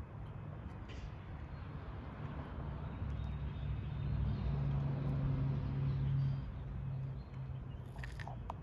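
Aircraft passing overhead: a low, steady drone that grows louder to about the middle and then fades.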